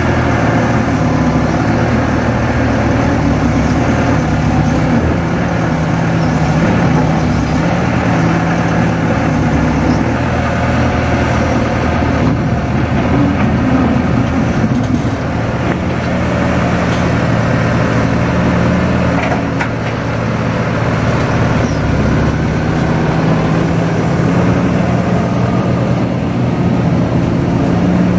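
Diesel engine of a KATO crawler excavator running steadily, its note dipping a little for a few seconds around the middle before coming back up.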